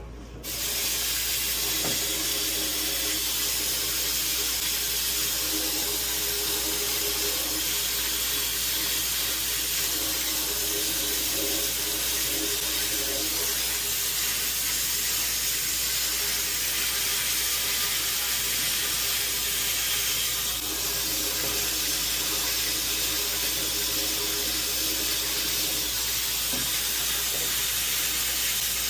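Bead blaster running: compressed air driving glass beads against a taped-off 1911 part in a blast cabinet, a steady hiss that starts suddenly just after the start and dips briefly about twenty seconds in.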